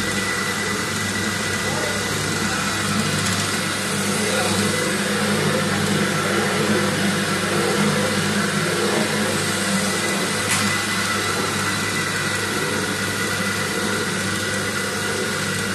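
Sigma Z-arm mixer running steadily: a low machine hum with a thin high whine over it, and a single short click about ten seconds in.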